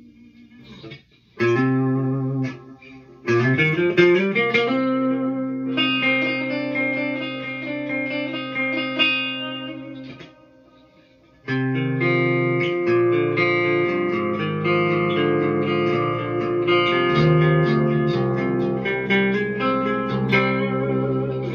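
Clean electric guitar played through a Hiwatt Hi-5 all-tube 5-watt amp's clean channel with a tape echo pedal: ringing chords and arpeggios. A brief strum comes first, then a pause about ten seconds in, and then the playing resumes.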